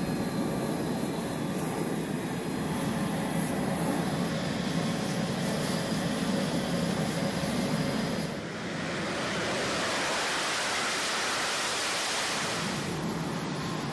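Jet aircraft engine noise on a carrier flight deck: a steady rumble, changing about eight seconds in to a brighter, louder hiss.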